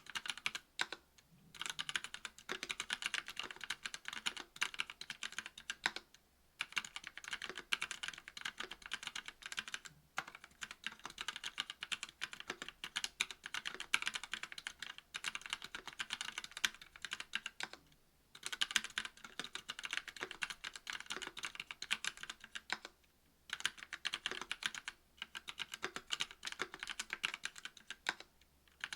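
Mechanical keyboard being typed on in fast runs of key clacks with brief pauses between them: a KBD67 V2 MKII with a brass plate, GMK keycaps and stock Kailh Pro Burgundy 50 g linear switches, with lubed and clipped PCB-mount stabilizers.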